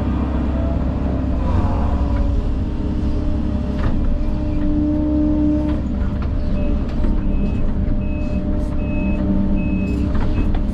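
Engine of a heavy earth-moving machine running steadily under load, with a few knocks. Past the middle its backup alarm starts beeping, about two short high beeps a second, as the machine reverses.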